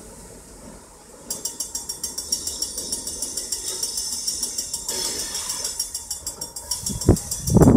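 Rapid, regular high-pitched metallic ringing of a grade-crossing warning bell, about eight strikes a second, starting about a second in as the GMD SW9 switcher approaches. Near the end the switcher's horn begins, much louder.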